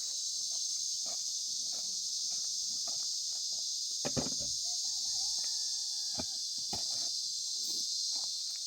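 Steady high-pitched insect chorus, typical of crickets, with scattered knocks and clicks. A brief faint wavering call comes about five seconds in.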